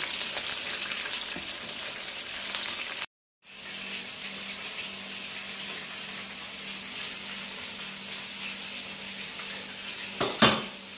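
Shrimp deep-frying in a wok of hot oil, a loud, dense sizzling. About three seconds in it breaks off and gives way to a quieter steady hiss with a low hum, and a single sharp knock comes near the end.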